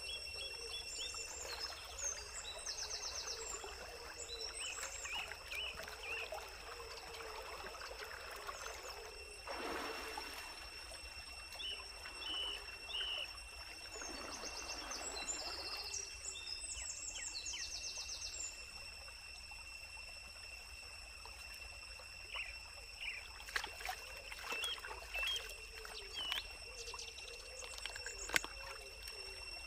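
Stream water trickling, with splashing as a plucked chicken is dunked and washed in it, loudest twice about a third and half of the way through. Birds chirp throughout.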